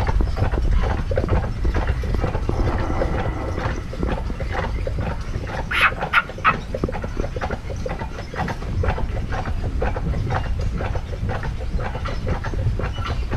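Horse-drawn carriage on the move: the horses' hooves clopping on the road over a steady low rumble of the rolling carriage, with a few sharper, louder sounds about six seconds in.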